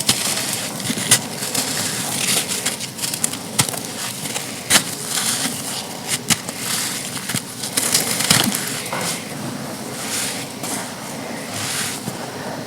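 Chunks of pure sand being crushed and crumbled: a steady run of crisp crunching and crackling, with sharp snaps scattered through it.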